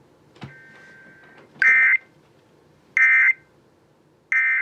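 Emergency Alert System SAME digital data tones: three short, loud bursts of rapid two-tone warbling about 1.3 seconds apart, after a click. Their shortness, coming right as a warning ends, marks them as the end-of-message code.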